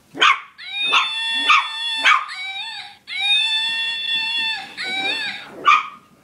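Puppy howling in long, high, drawn-out notes, broken by short sharp yips.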